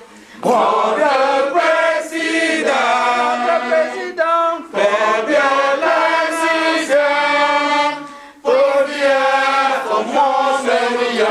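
Voices singing a song in long, held phrases, breaking off briefly about four seconds in and again about eight seconds in.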